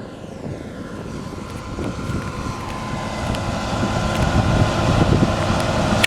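Case-IH Axial-Flow combine harvester running at work, a steady diesel and machinery drone with faint whines that grows gradually louder, with wind buffeting the microphone.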